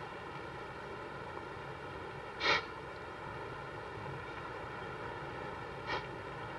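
Steady hum and hiss of a quiet car interior, broken by one short sharp noise about two and a half seconds in and a fainter one near the end.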